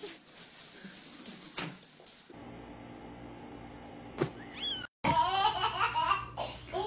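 Cat meowing: a short high call a little past the middle, then louder, wavering calls in the last two seconds.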